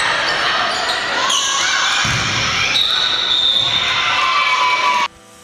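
Players' and spectators' voices shouting in a reverberant gymnasium during a volleyball rally, with a ball thudding on the hardwood floor about two seconds in. The sound cuts off abruptly near the end into quiet background music.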